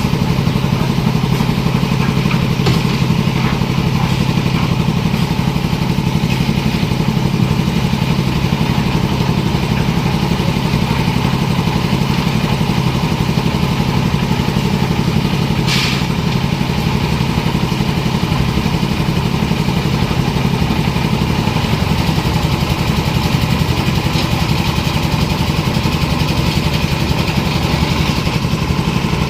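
Engines of a concrete mixer machine and a concrete lift machine running steadily, with one brief sharp knock about halfway through.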